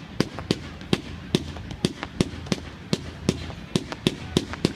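Fireworks going off in a rapid, fairly even series of sharp bangs, about three a second.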